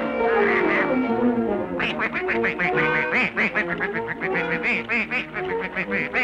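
Cartoon orchestral score with falling slides, then from about two seconds in a rapid run of cartoon duckling quacks, about six a second, over the music.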